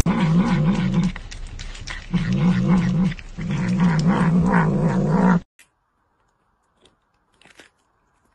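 A cat growling over meat it has its mouth on: a low, wavering growl in three long stretches, cut off sharply about five seconds in, followed by a few faint clicks.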